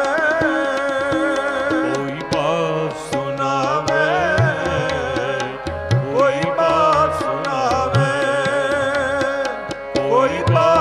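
Devotional kirtan music: harmoniums playing the melody over tabla, with a man singing a wavering, ornamented line.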